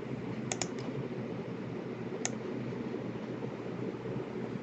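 Scattered clicks at a computer: a quick group of three about half a second in and a single one just past two seconds, over a steady low hum.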